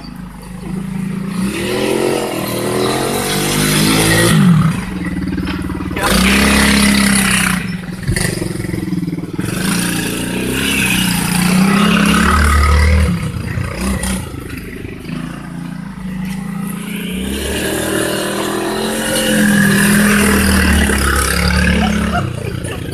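110cc quad (ATV) engine revving up and down as it is ridden around a lawn, its pitch rising and falling again and again with the throttle and growing louder as it passes close.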